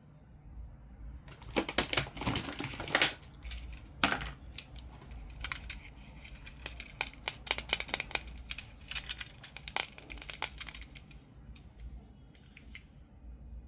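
Hands unboxing a fashion doll: a run of clicks, taps and rustles of plastic and cardboard packaging, loudest about two to four seconds in, then lighter and sparser.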